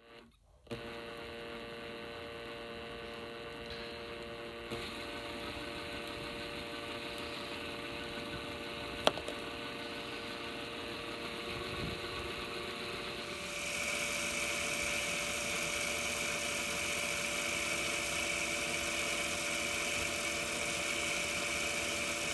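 Electric drill motor running steadily, spinning the core wire so a thin wire winds around it into Clapton wire. There is a single sharp click about nine seconds in, and a little past halfway the motor sound gets louder and brighter.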